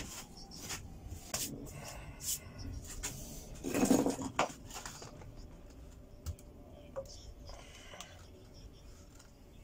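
Workbench handling noises: scattered clicks, knocks and scrapes of tools and parts being moved and set down, with a louder knock about four seconds in.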